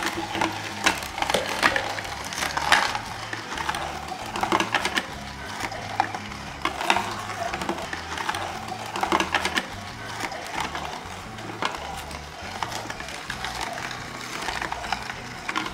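Tribest Slowstar vertical slow juicer's auger crushing carrots as they are pushed down its feed chute with the pusher: irregular crunching and cracking, with sharper snaps here and there.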